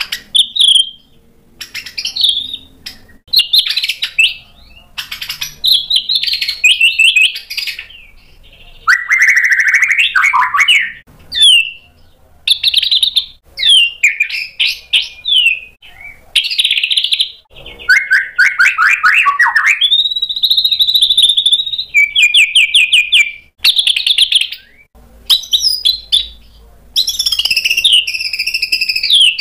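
Male white-rumped shama (murai batu) in full song, running through a varied repertoire of learned phrases. It gives loud clear whistles, fast trills and rapid rattling strings of repeated notes, with short pauses between phrases.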